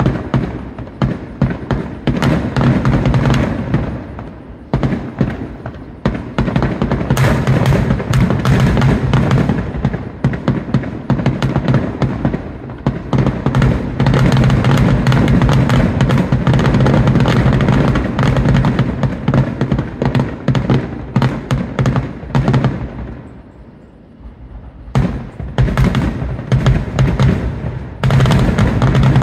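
Fireworks finale: a rapid, overlapping barrage of aerial shell bursts and crackle, easing off about 23 seconds in before another run of bangs near the end.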